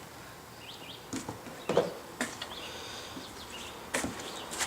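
Faint outdoor ambience with short bird chirps, and a few scattered knocks or clicks.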